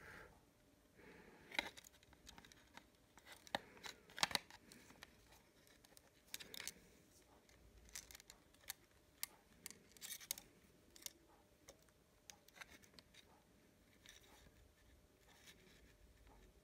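Close handling noises: irregular small clicks, taps and scrapes as hands fit a wired battery cell into a plastic power bank case, loudest and busiest in the first half.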